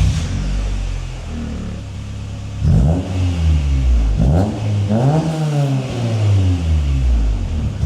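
Honda Civic EM1's B16 VTEC four-cylinder, running through a freshly fitted decat pipe in place of the catalytic converter, idling and then revved: two short blips, then a longer rev that rises and falls.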